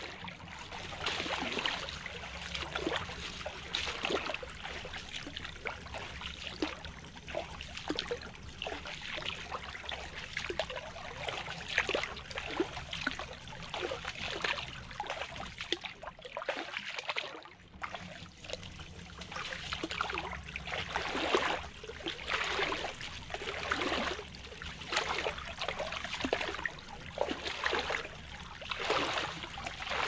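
Shallow forest stream trickling and gurgling over its bed, a busy run of small irregular splashes and bubbles that dips briefly about halfway through.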